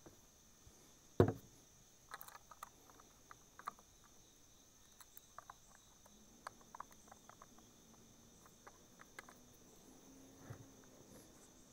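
A single thump about a second in, then scattered light plastic clicks and taps as the chainsaw's bar-oil tank cap is handled and screwed shut. A steady high insect chirring runs underneath.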